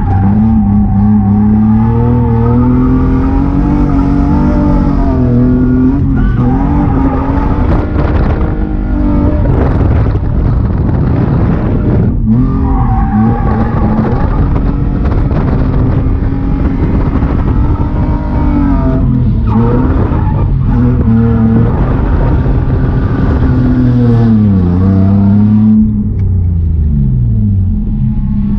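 BMW E36 325i's stock M50B25 inline-six through an ISR blast pipe exhaust, revving hard up and down through a drift with tyres skidding. Near the end the revs fall away and settle to a steady lower note.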